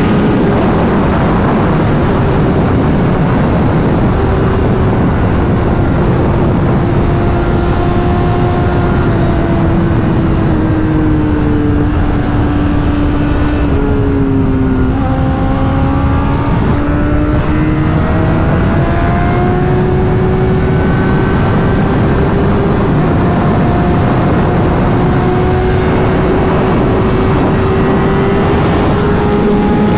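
Honda CBR600RR inline-four engine running under way, with wind rush over the bike. The engine note sinks slowly for about fifteen seconds as the rider eases off, then climbs steadily as the bike speeds up again.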